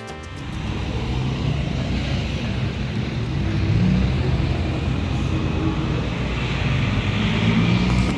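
Street traffic noise: a steady low rumble of passing vehicle engines, with no music or speech over it.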